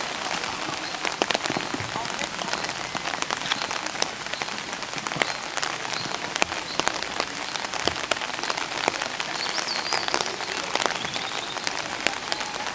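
Steady rain falling on a nearby surface, a dense hiss full of separate drop clicks, with a faint short high tone about ten seconds in.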